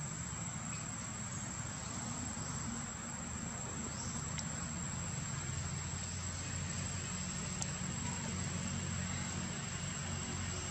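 Outdoor ambience: a steady, high-pitched insect tone holds throughout over a low, steady hum.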